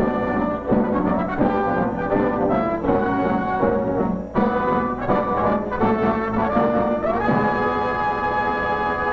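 Orchestral film score led by brass, with trombones and trumpets prominent, moving through changing chords and then holding one long chord for the last couple of seconds before it cuts off.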